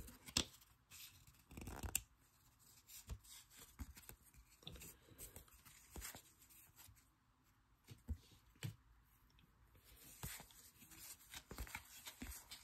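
Stack of baseball cards being flipped through by hand: faint, irregular slides and flicks of card stock against card stock.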